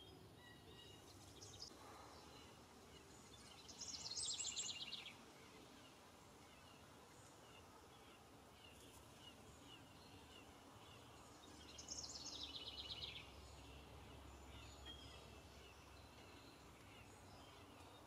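Outdoor birdsong: a songbird sings twice, about eight seconds apart, each song a quick trill of high notes that falls in pitch over about a second. Faint chirps from other birds sound in between.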